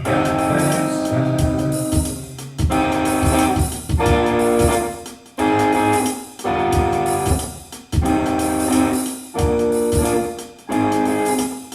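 Instrumental band music. Sustained chords come in phrases of about one to two seconds, with short breaks between them, over a steady drum beat.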